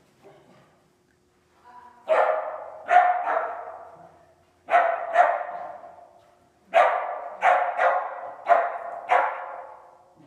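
A dog barking, about ten sharp barks in clusters of two or three, each one echoing in a large indoor arena.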